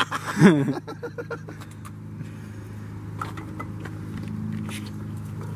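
A car engine idling steadily, with a few faint light clicks.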